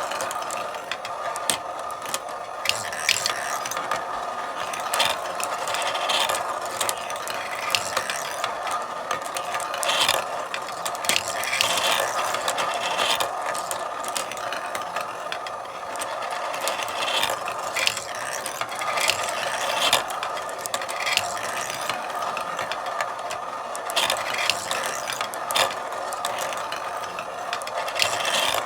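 Marbles rolling along a marble run: a steady rolling rattle dotted with many sharp clicks as the marbles knock against the track and each other.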